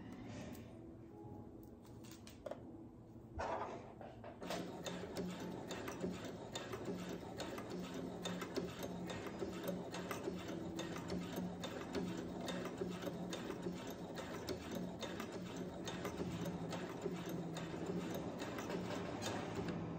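Brother computerized sewing machine stitching steadily, starting about four seconds in after a quieter few seconds: rapid even needle ticks over a low motor hum.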